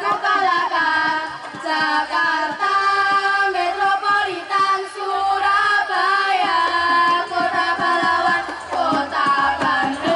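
Singing with musical accompaniment: young voices singing a song, the melody moving continuously.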